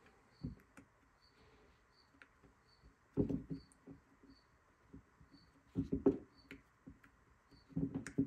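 Hands working a Honda CB450T front brake caliper body while seating new piston seals in its bores: short knocks and rubbing. They come in three brief clusters, about three, six and eight seconds in.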